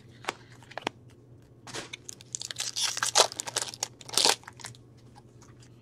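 Hockey trading cards being handled by hand: a couple of light clicks, then a stretch of rustling as cards slide over each other, loudest about four seconds in.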